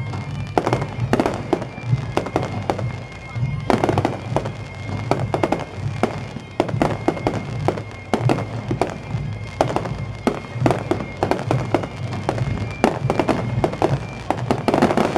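Fireworks display: aerial shells bursting in quick succession, several sharp bangs and crackles a second over a steady low rumble.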